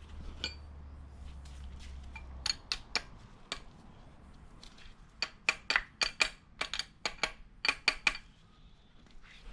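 Sharp metallic clinks of loose VQ37VHR engine parts being handled and knocked together: a few about two and a half to three and a half seconds in, then a quick run of a dozen or so between about five and eight seconds.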